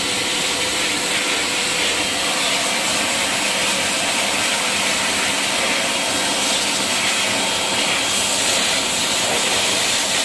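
Pet grooming blower running steadily, a loud even rush of air from its hose nozzle with a faint steady motor whine, blow-drying a wet Shih Tzu's coat.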